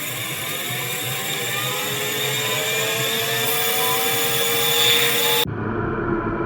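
Designed sound-effect riser: a bright, hissing jet-like swell with several tones gliding slowly upward, growing louder. It cuts off abruptly about five and a half seconds in, giving way to a low, dark industrial drone.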